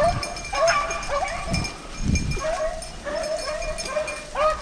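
Pack of rabbit hounds baying on a rabbit's trail: many short, repeated cries from several dogs overlapping one another, the sign that the pack is running the rabbit.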